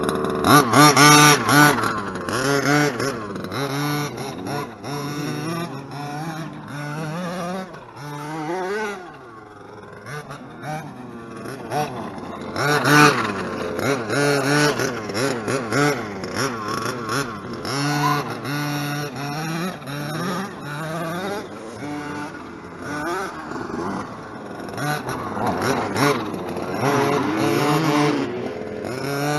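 Zenoah G320 32cc two-stroke engine with a race-ported head, in a 1/5-scale Redcat Rampage MT V3 RC monster truck, revving up and down in repeated throttle bursts as the truck is driven. The loudest bursts come about a second in, around the middle and near the end, and it is quieter for a stretch before the middle.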